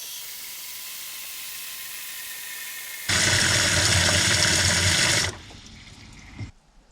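Water running into a bin as it is filled: a steady hiss that grows louder and fuller about three seconds in, drops back after about five seconds and stops shortly before the end.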